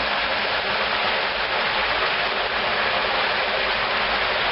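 Steady rush of flowing water: wastewater discharged from residential buildings running out into the stream.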